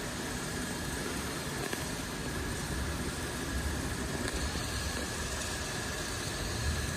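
CNC wood router running steadily: a constant high whine over a hiss and a low hum.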